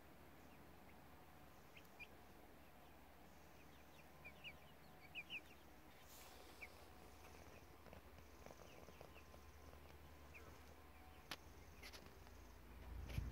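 Faint, short peeps of month-old Silkie chicks: scattered single chirps, with a quick run of them about four to five seconds in. A single sharp click near the end.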